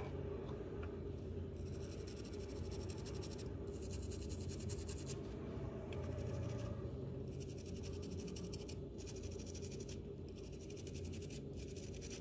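A small soft-bristle brush scrubbing a drone's circuit board wet with isopropyl alcohol, cleaning off water-damage residue: a bristly scratching in runs of quick strokes, each run a second or so long, with short pauses between. It starts about a second and a half in.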